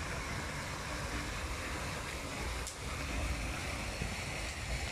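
Steady splashing hiss of a pond fountain's water jets, with wind rumbling on the microphone.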